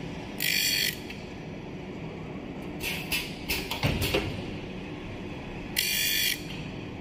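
Automatic double-head saw blade sharpening machine running through its cycle with a steady hum. Two short, high hissing bursts come about five seconds apart, with a cluster of mechanical clicks and knocks between them.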